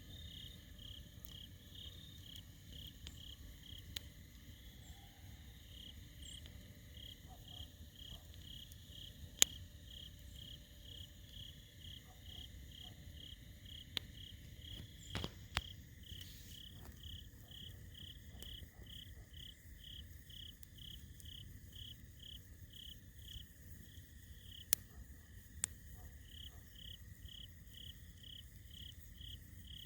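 Crickets chirping in an even rhythm of about two chirps a second over a steady high insect trill, with a few sharp pops from a crackling campfire, the loudest about nine seconds in.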